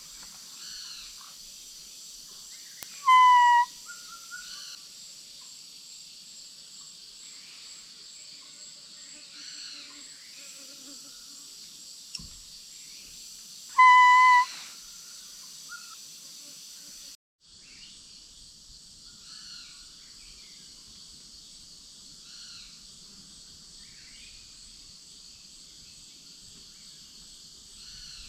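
Two short, loud whistled calls about eleven seconds apart, each a single slightly falling tone, blown on a bamboo barking-deer call to lure deer. Insects and birds chirp steadily behind them.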